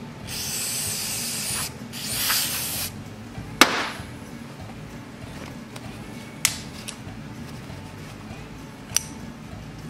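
Aerosol lubricant sprayed through a straw onto a small engine's recoil starter mechanism, in two hissing bursts of about a second each. A sharp knock follows about a second later, then a couple of lighter clicks.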